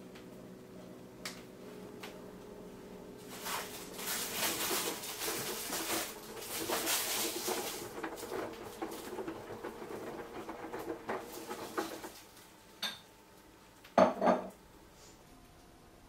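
Samsung Eco Bubble front-loading washing machine in its wash phase, the drum turning a soaked teddy bear and cloths. A steady motor hum gives way to several seconds of water sloshing and clattering as the wet load tumbles, followed by two sharp knocks near the end.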